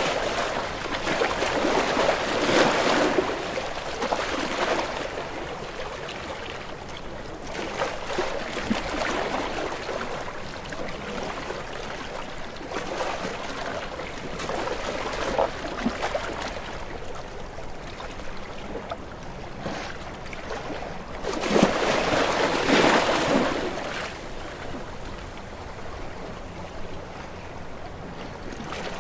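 Ocean waves washing in and drawing back as a continuous wash of water. Louder swells come every several seconds, and the biggest arrives about three-quarters of the way through.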